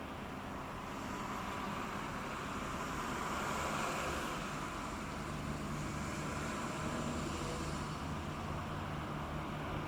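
A boat's engine running as it passes, a low steady hum under a broad rush of wake and wind that swells to its loudest about four seconds in.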